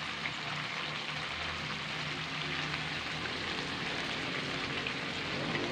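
Pork and liver strips frying in a steel wok, a steady sizzling hiss, as vinegar is poured in from a bottle.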